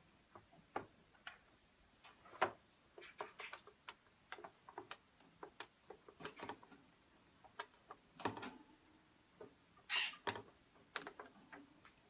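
Small wooden toy ladder clicking and knocking against a wooden ladder and a plastic tray as a parrot carries and drags it. The taps come irregularly, with the loudest knocks about two and a half seconds and ten seconds in.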